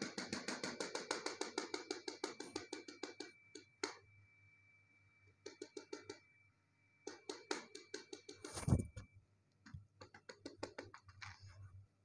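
A fast run of scratching strokes, about ten a second, for about three seconds, then several shorter runs of scratching and one solid thump a little past the middle.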